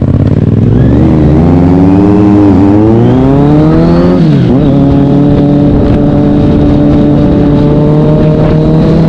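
Kawasaki Z900's inline-four engine through an SC-Project S1 aftermarket exhaust, heard from on the bike under acceleration. The revs climb, drop at a gear change about two and a half seconds in, climb again and drop at a second upshift a little past four seconds in, then hold steady.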